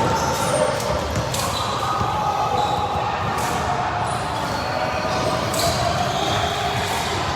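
Basketball game play in a gym hall: a ball bouncing on the court amid a steady din of crowd and player voices, with short high squeaks scattered through.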